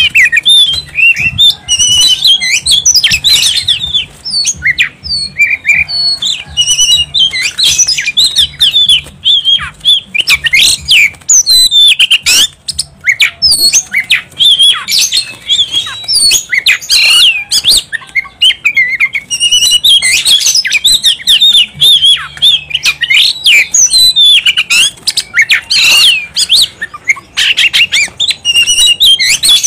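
Oriental magpie-robin (kacer) singing loudly and without pause: a fast, varied stream of whistled and sweeping notes with harsh chattering notes mixed in.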